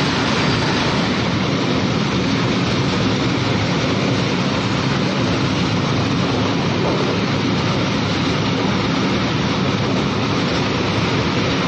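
Long freight train running through at speed: a steady rumble and rattle of wagon wheels on the rails, with one of its locomotives passing partway through.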